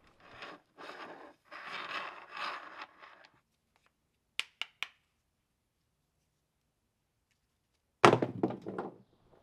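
The iron parts of an old BASA No. 3 split-head mallet being handled and fitted together by hand: rough scraping and rubbing for about three seconds, then three quick sharp clicks. About eight seconds in comes a loud knock with a short clatter as it is set down on a steel plate.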